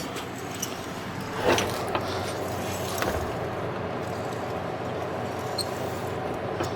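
A vehicle driving over a rough dirt trail: steady running and road noise with a few sharp knocks and rattles, the loudest about one and a half seconds in.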